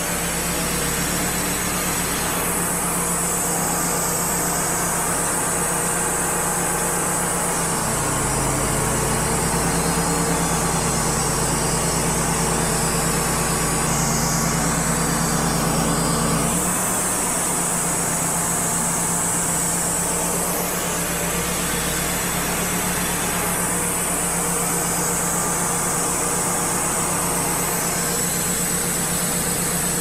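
Wood-Mizer LT35 portable bandsaw mill's engine running steadily. Its note changes about eight seconds in and changes back about seventeen seconds in.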